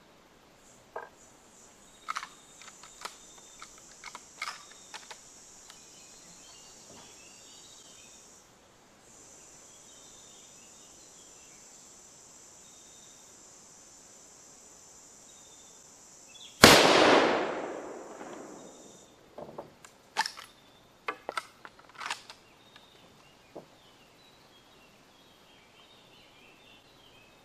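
A Winchester Model 1895 lever-action rifle fires a single handloaded 7.62x54R round about 16–17 seconds in, a loud crack that rings out for about two seconds. Before it come sharp metallic clicks as the rifle's action is handled, and soon after it a few more clacks as the lever is worked.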